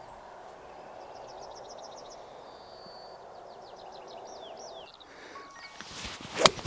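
A bird singing in quick runs of high chirps over a steady outdoor hiss. Near the end comes a single sharp crack as a 5-iron strikes a golf ball from the fairway.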